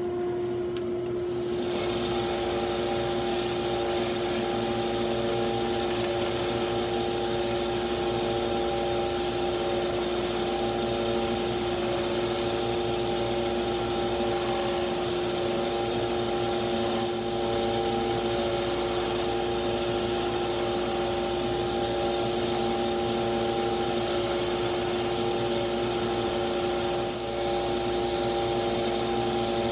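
Small benchtop belt-and-disc sander running steadily with a dust-collection vacuum hose attached, a constant motor hum and whir as small wooden pieces are sanded against the narrow belt.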